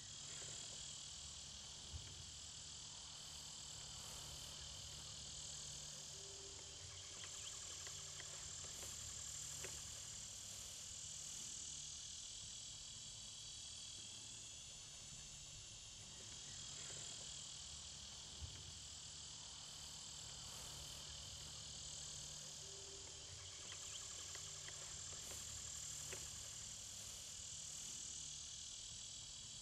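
A steady chorus of insects, a high even chirring, over a low rumble, with a couple of faint clicks.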